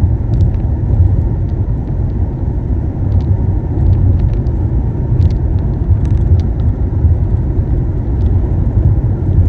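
Steady low road and engine rumble inside a Honda Pilot's cabin while cruising at highway speed in overdrive.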